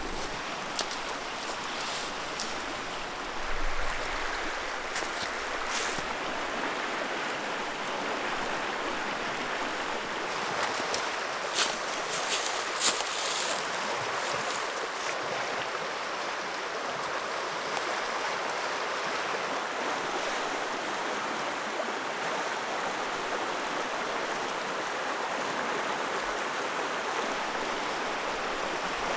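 River rapids rushing steadily, with a few short sharp clicks scattered over it, the loudest pair near the middle.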